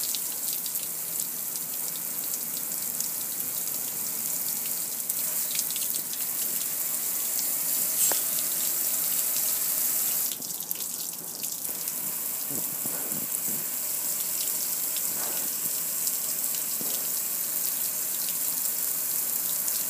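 Water spraying steadily from a garden hose onto a metal gas grill, hissing and splashing as it runs off onto the concrete. About ten seconds in the spray sound thins briefly, then carries on.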